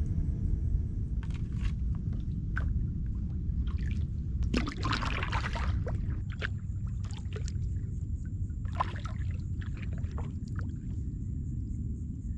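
Kayak paddle strokes: the blades dipping and splashing, with water dripping and trickling off them, and a longer splash about five seconds in, over a steady low rumble.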